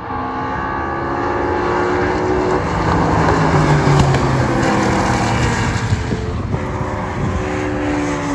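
Several super touring race car engines running hard on track, their pitches rising and falling as they rev and pass; one passes loudest about three to four seconds in.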